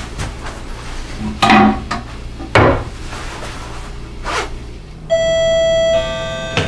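A few brief rasping rustles, then a two-note doorbell chime about five seconds in: a higher note, then a lower note a second later, both ringing on.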